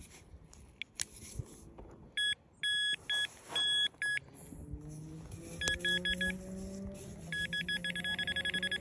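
Handheld metal-detecting pinpointer beeping as it is probed into loose soil over a metal target: a few separate beeps, then a rapid, even stream of beeps near the end as it closes in on the metal.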